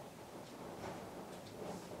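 Quiet room tone with a few faint, short ticks.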